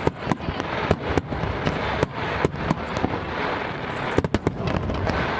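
Large fireworks display: shells bursting in a dense, irregular run of bangs, several a second, over a continuous background of noise, with a loud cluster of bangs about four seconds in.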